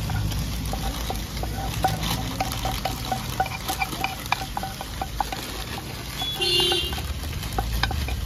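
Wooden spatula scraping instant noodles out of a frying pan onto plastic plates, with a quick run of light taps and clicks as it knocks against the pan and plates.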